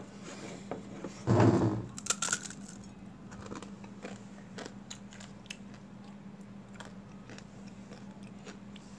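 Crunchy dry instant-noodle snack (Mamee Monster ghost pepper) being bitten into and chewed: a loud bite about a second and a half in, then scattered sharp crunches as it is chewed.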